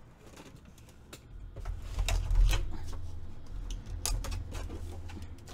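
Handling noise as a paper trimmer and sheets of patterned paper are moved and set down on a craft table: a low rumble of sliding and bumping, with a few sharp clicks and light knocks.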